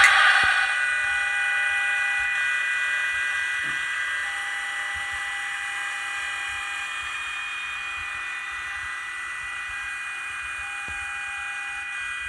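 Sound decoder of an HO-scale Škoda class 163 electric locomotive model playing the locomotive's steady high electrical whine, several tones held over a soft hiss, slowly getting quieter, as of thyristor converters and cooling equipment winding down.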